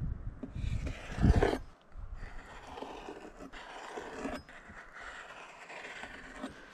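A chef's knife slicing a halibut fillet into strips on a bamboo cutting board, with soft scraping strokes and a few light knocks of the blade on the board. A low rumble on the microphone is loudest in the first second and a half.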